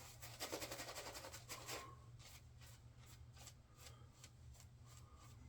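Shaving brush swishing menthol shaving-soap lather onto a stubbled face: rapid, closely spaced bristle strokes for about the first two seconds, then slower, spaced strokes. Faint.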